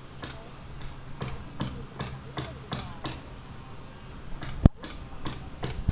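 Hammer striking over and over, about two or three blows a second, with one much louder sharp knock near the end.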